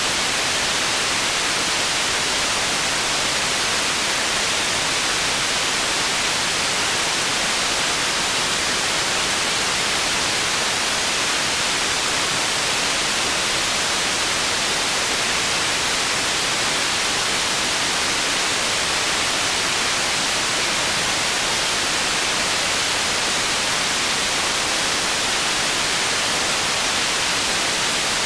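Processed white noise for tinnitus masking: a steady, unbroken hiss, brightest in the upper range with little low end, never changing in level.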